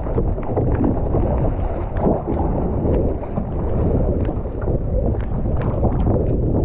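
Wind rumbling on the microphone over sea water splashing at a boat's side as roped oyster baskets are dropped into the water, with frequent short slaps and ticks.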